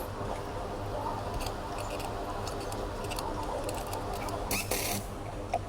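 Scattered light clicks and taps over a steady low hum, with a short cluster of sharper clicks near the end.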